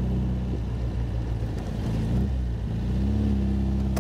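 MGA's four-cylinder engine running on a mountain climb. Its note turns uneven and lower for about two seconds, then comes back steady at higher revs about three seconds in, as when a gear is changed and the throttle opened again.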